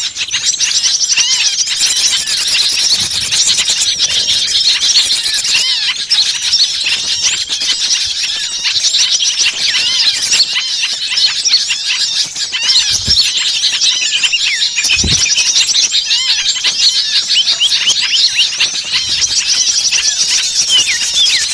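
A dense chorus of many small songbirds chirping and calling over one another without a break, in quick, high, rising and falling notes. This is an agitated, noisy flock call of the kind used as a lure recording to draw small birds in.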